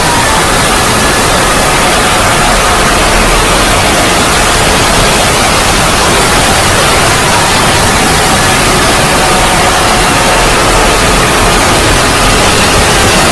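Loud, steady static-like noise filling the whole range, with faint falling tones drifting through it: a heavily distorted, synthesized 'void' logo sound effect.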